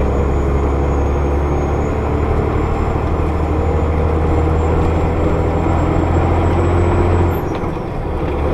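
Engine and road noise heard inside a moving vehicle's cab: a steady low engine drone with a faint high whine, which eases off about seven seconds in before picking up again.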